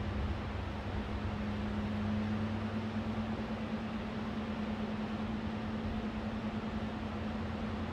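Steady outdoor rushing noise of wind and surf with a low, steady engine hum underneath. The deeper part of the hum fades early and a higher hum carries on.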